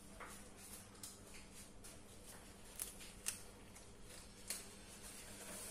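Faint handling sounds from work at a kitchen counter: a handful of soft clicks and taps, the clearest about three seconds in, over a steady low hum.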